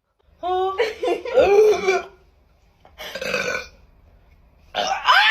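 A woman burping loudly several times in a row: a long burp that wavers in pitch, a shorter one about three seconds in, and another starting near the end.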